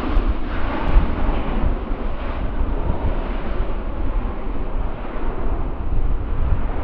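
Distant jet engine noise from a Boeing 777-300ER rolling out on the runway just after landing. It is heard over steady wind buffeting the microphone.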